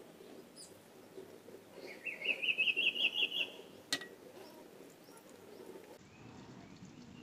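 A bird's rapid trill of about ten quick notes, rising slightly in pitch, a couple of seconds in, followed by a single sharp click. Underneath, faint sounds of rice and curry being mixed by hand on a plate.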